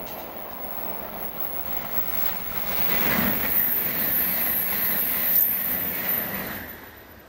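500 Series Shinkansen passing at speed: a rushing running noise that swells to its loudest in the middle as the train goes by, then fades away near the end.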